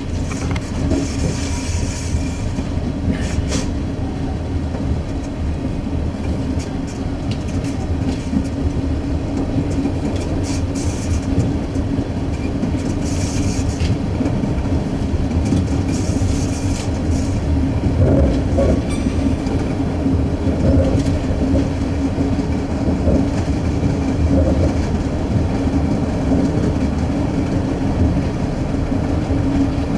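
Diesel suburban railcar running at speed, heard from the front of the train: a steady low rumble and engine drone, with scattered clicks from the wheels over the track.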